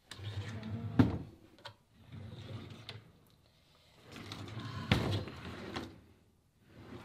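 Dresser drawers being slid open and shut and rummaged through, with a sharp knock about a second in and another near five seconds.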